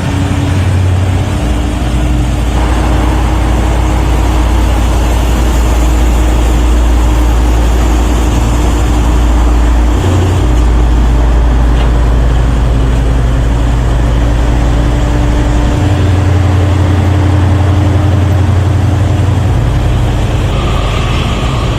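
Low, steady rumble of a heavy vehicle engine, its pitch shifting abruptly several times.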